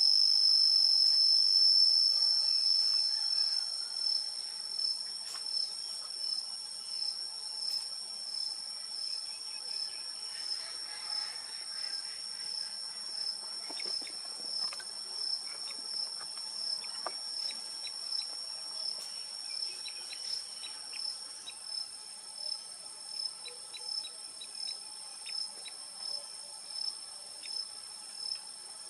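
A steady, high-pitched chorus of calling insects. A regular pulse comes in a little more than once a second from a few seconds in, after the overall level drops.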